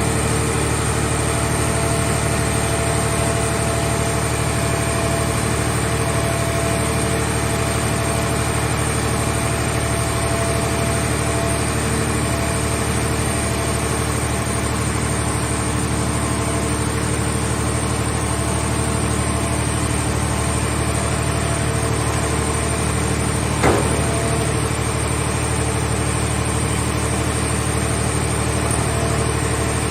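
Hydraulic scrap car-shell baler running with a steady machine hum. One sharp knock comes about three-quarters of the way through.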